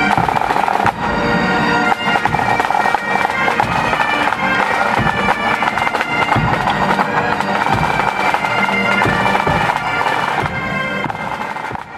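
Pipe band playing a march: Great Highland bagpipes sounding a tune over their steady drones, with drum beats through it.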